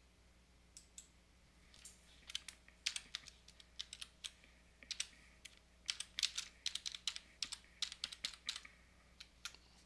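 Computer keyboard keystrokes in quick clusters as a phone number is typed in digit by digit, starting about a second in.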